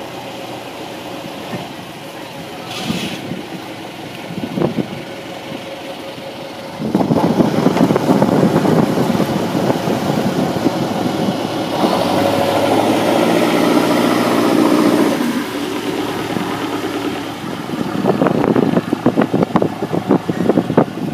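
A boat engine running steadily, getting much louder about seven seconds in, with rough crackling noise near the end.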